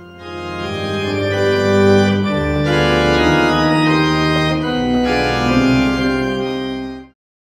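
Pipe organ playing slow, sustained chords, with a deep bass that swells in about two seconds in. The music cuts off abruptly near the end.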